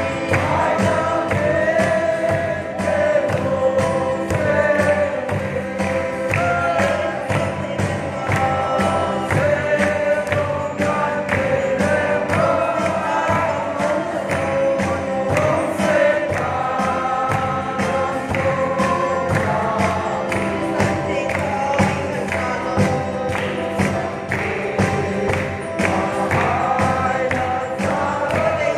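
A group of voices singing a gospel song together over a steady percussion beat.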